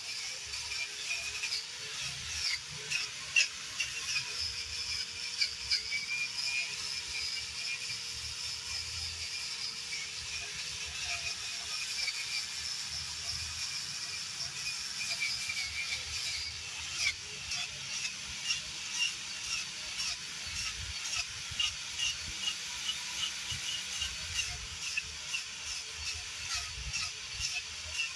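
Angle grinder with a wire brush wheel running against rotted wood: a steady high whine with scratchy ticks from the bristles catching on the wood, the ticks coming more regularly in the second half.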